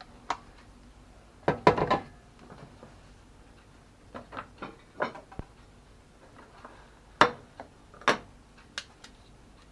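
Kitchen utensils and dishes knocking and clinking while food is dished up: irregular sharp clatters, a loud cluster soon after the start, lighter taps in the middle and two loud knocks later on.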